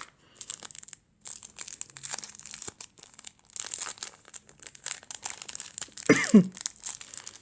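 Packaging crinkling and rustling in bursts as it is handled and unwrapped, with a short vocal sound a little after six seconds.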